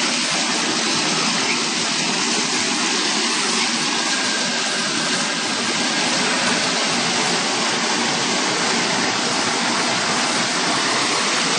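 FXC-70 vegetable washing machine running: a steady rush of water churning in its washing tank, with the machine's pump and motor noise underneath.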